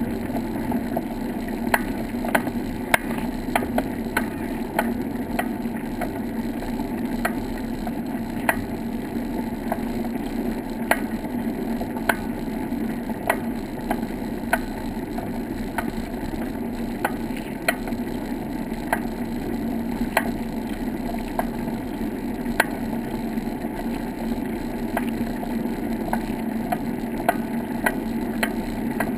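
Bicycle rolling along a wooden boardwalk: a steady rolling rumble with sharp clicks about twice a second.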